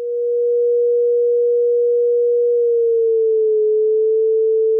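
A synthesized pure sine tone demonstrating the Doppler effect for a moving listener: a 440 Hz source heard at about 479 Hz while approaching. About three seconds in, as the listener passes the source, the tone slides down to a steady lower pitch of about 401 Hz.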